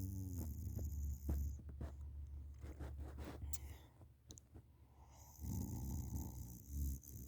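A person snoring in her sleep. One wavering snore ends just after the start, a quieter stretch follows, and another snore comes in about five and a half seconds in.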